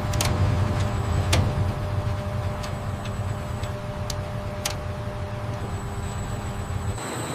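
Industrial machinery humming steadily, with several sharp clicks at irregular intervals over the first few seconds.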